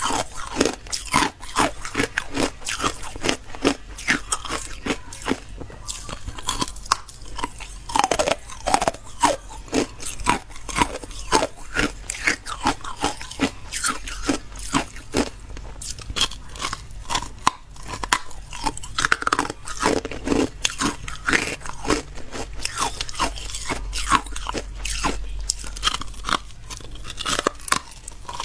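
Frosty white carbonated ice being bitten and chewed close to a microphone: a quick run of sharp, crisp crunches, several a second.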